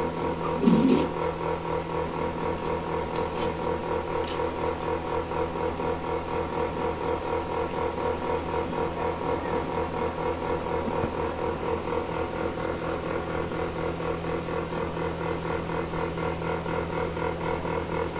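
Milking machine running steadily, its motor hum carrying an even rhythmic pulsing, with a brief louder sound about a second in.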